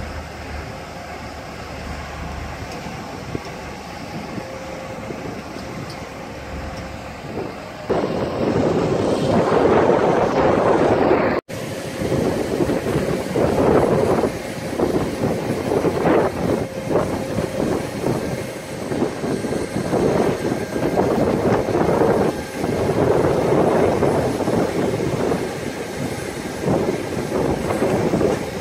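Mobile crane's diesel engine running with a steady hum. From about eight seconds in, a louder rushing noise rises and falls in irregular surges, wind and surf.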